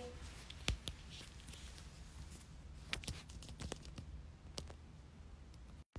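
Faint room tone with a low steady hum and a scattering of light, short clicks, like small handling noises; the sound cuts out abruptly near the end.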